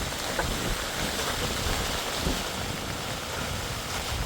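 Storm wind blowing hard and buffeting the microphone: a steady rushing noise with a rough low rumble underneath.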